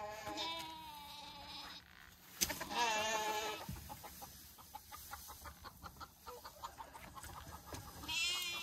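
Sheep bleating: three long, quavering bleats, the loudest about two and a half seconds in. Between them, chickens cluck in short, quick notes.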